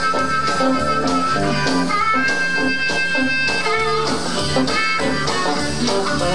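Live blues band playing: electric guitar over bass and drums with a steady beat, the lead holding and bending long notes.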